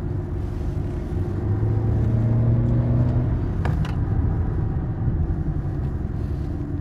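Car running on the road, heard from inside the cabin: a steady low rumble of engine and road noise, with the engine hum growing stronger for a second or so about two seconds in. One short click about three and a half seconds in.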